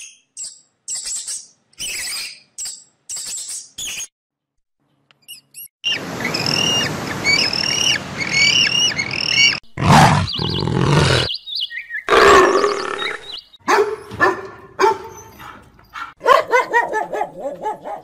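A run of different animal calls edited together: a few short high-pitched squeaks, then repeated chirping calls over a steady hiss, then a loud low growl-like burst, and pitched calls toward the end.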